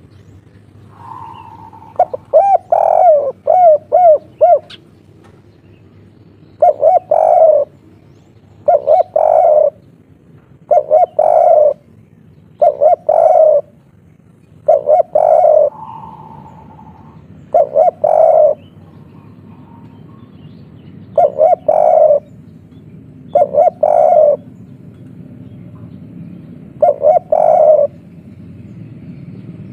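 Spotted dove cooing: a quick rolling run of notes, then its 'kuk 3' coo, a short phrase of three notes repeated nine times at intervals of two to four seconds.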